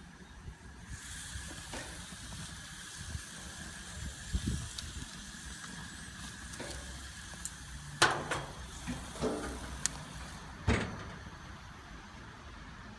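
Barbecue grill hissing steadily as peppers roast on it, with a few sharp knocks, the loudest about eight seconds in and another near eleven.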